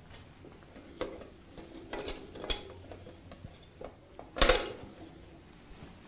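Light clinks and knocks from wiping a stainless-steel toilet-roll holder and nearby bathroom fittings with a cloth, with one louder clatter about four and a half seconds in.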